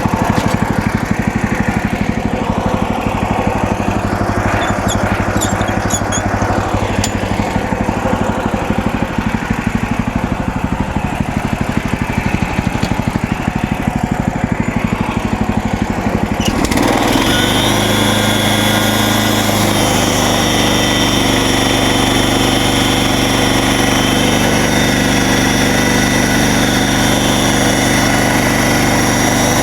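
MechMaxx SM32 band sawmill's gasoline engine running with a rough, pulsing beat. About two-thirds of the way in, the sound changes abruptly to a faster, steadier run with a high whine.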